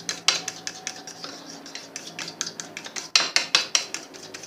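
Ghee and flour being beaten into a paste in a bowl: a utensil clicking and scraping against the bowl in quick, irregular strokes, with a faster flurry about three seconds in.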